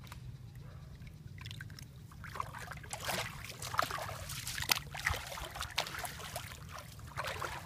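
Shallow muddy water splashing and sloshing as hands grope through it and a person wades. The splashes are irregular, begin about a second and a half in, and are loudest near the middle.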